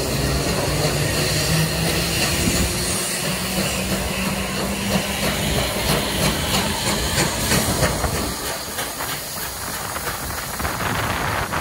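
Steam locomotive 3801, a C38-class Pacific, running with steam hissing over a steady train rumble. A low steady hum fades out about eight seconds in, and a run of rapid clicks follows.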